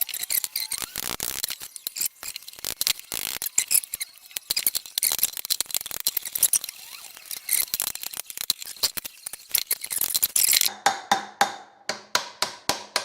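Metal tools clicking and scraping against a Suzuki TS250 two-stroke engine's crankcase, then, near the end, a steady run of ringing hammer taps, about three a second, to work the crankcase halves apart.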